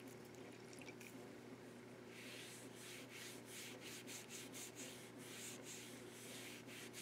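Hand rubbing back and forth over a knife-sheath blank of tooling leather: a faint dry scrubbing that starts about two seconds in and goes on in quick strokes, about two to three a second.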